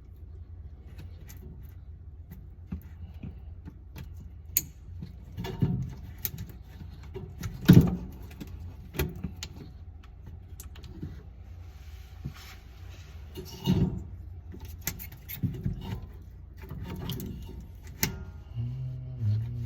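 Irregular clicks, knocks and light metallic rattles, as of parts and tools being handled, over a steady low hum. The loudest knocks come about eight and fourteen seconds in.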